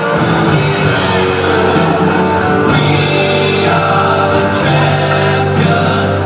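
Loud music with singing and sustained instrumental notes, rock-like with guitar.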